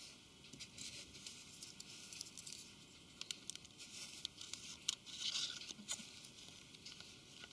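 Faint light taps, clicks and scrapes of hands handling a Samsung Galaxy Note 2 smartphone and its S Pen stylus, with a denser scraping patch about five seconds in.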